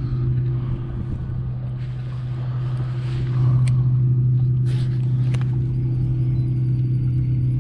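Boat's outboard motor running at a steady low idle, a constant low hum. A few sharp clicks sound near the middle.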